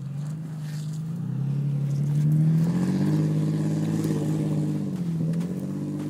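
Toyota FJ Cruiser's 4.0 L V6 engine pulling under load. It revs up over the first couple of seconds, holds, eases off about five seconds in, then picks up again.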